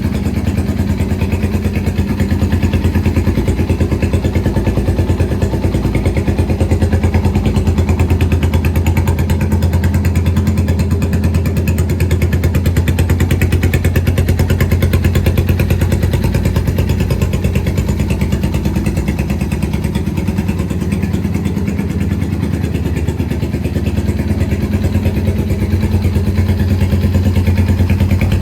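Yamaha TW225's single-cylinder four-stroke engine idling steadily through an aftermarket silencer.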